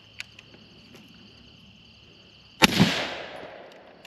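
A single gunshot about two and a half seconds in, its crack fading away over about a second, with steady insect chirring behind it.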